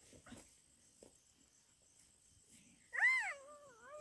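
A woman's high, wavering whimpering cry, rising and then sliding down in pitch, starts about three seconds in and carries on; she is pinned on the ground and struggling.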